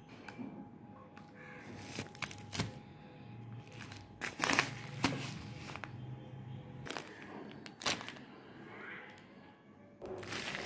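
Plastic grocery packets crinkling and being set down on a table, in a few separate short bouts of rustling with light knocks.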